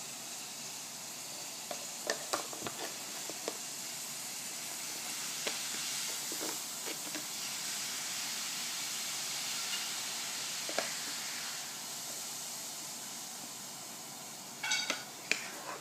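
Steady hiss of background noise, with a few faint light taps scattered through it and a short high-pitched sound near the end.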